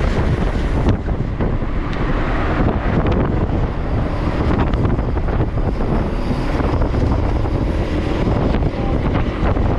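Wind rushing and buffeting on the microphone of a camera riding along on a road bicycle, a loud, steady rush with no break.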